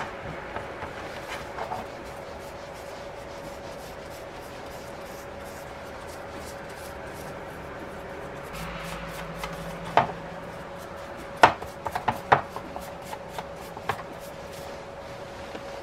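Small brush rubbing oil onto a wooden saw handle resting on a plastic lid, with a handful of sharp knocks and taps between about ten and fourteen seconds in, over a steady hum.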